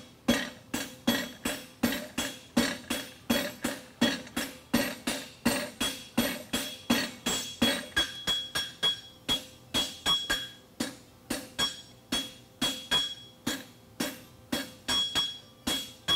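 Hand hammer striking a red-hot bar of 5/8-inch square steel on an anvil in a steady rhythm of about three blows a second, each blow followed by a short metallic ring from the anvil. The farrier is forging the corner of a horseshoe's heel caulk.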